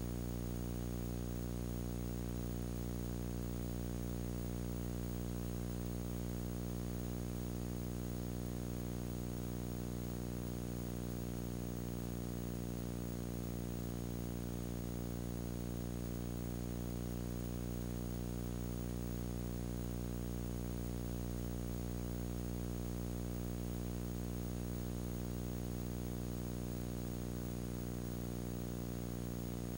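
Steady low electrical hum with a layer of hiss, unchanging throughout; no sound from the scene comes through.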